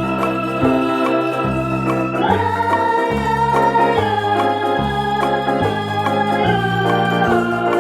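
Background music: held organ-like chords over a bass line that moves to a new note about every three-quarters of a second.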